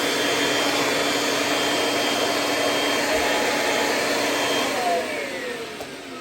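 Kirby G6 upright vacuum running steadily, then switched off about five seconds in, its motor winding down with a falling whine.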